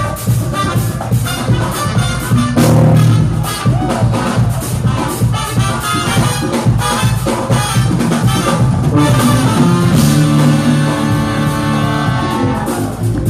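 Jazz-fusion band playing live: drum kit driving a steady beat under brass and keyboard parts, with sustained chords held for a couple of seconds near the end.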